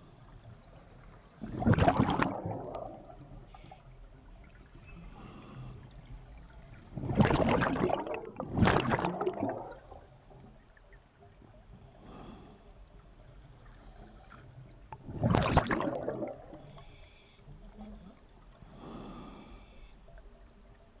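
Underwater scuba breathing: the gurgling rush of exhaled bubbles from a regulator comes in four bursts, two of them close together near the middle.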